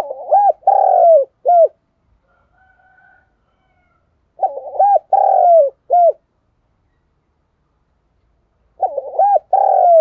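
Spotted dove cooing: a phrase of several short, rounded coo notes repeated about every four seconds, three phrases in all.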